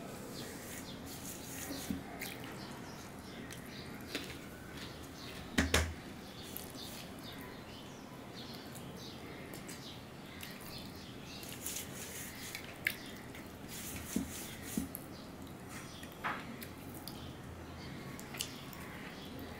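Eating by hand: close mouth sounds of chewing soft food, with fingers scraping and gathering food on a stainless steel plate. Scattered short clicks and smacks sound over a low steady background, the loudest about six seconds in.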